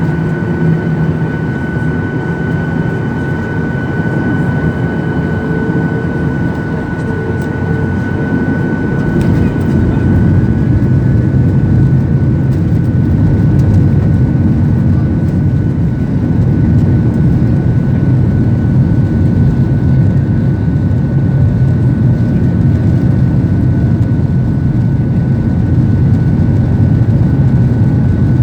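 Boeing 737-800 jet engines running with a steady, loud roar and deep rumble. A thin steady whine fades out about nine seconds in, as the rumble grows a little louder.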